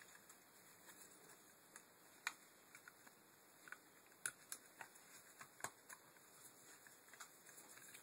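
Faint, irregular clicks and small plastic knocks from hands fitting a window regulator's cable drum housing onto its cables, over a low steady hiss. The sharpest click comes a little over two seconds in, with a run of them a few seconds later.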